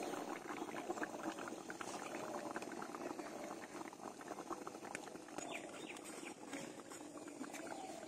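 Pan of curry gravy with potatoes and chicken meatballs simmering, with a steady fizz of small bubbles popping.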